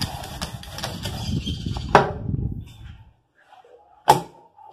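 Wooden rolling pin rolling over bread dough on a granite countertop, a steady rumbling for about two seconds that ends with a sharp knock. After a quiet moment, a single thump near the end as the dough is handled on the counter.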